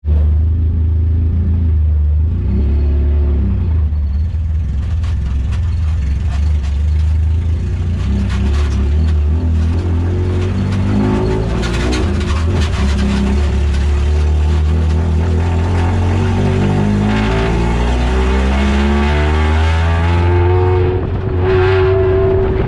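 Dirt-track race car engine heard from inside the cockpit, running hard with a heavy low drone. The revs rise and fall repeatedly as the car accelerates and lifts around the track.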